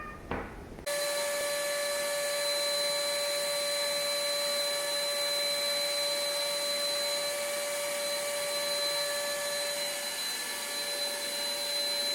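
A small electric motor running steadily, a high whine over a hiss, starting abruptly about a second in.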